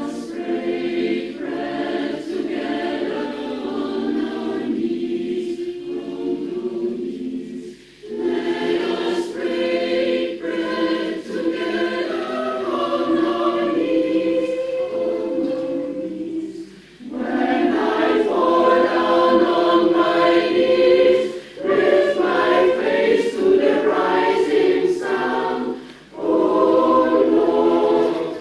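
Mixed choir of women's and men's voices singing in several parts, in sustained phrases broken by four short breaks for breath.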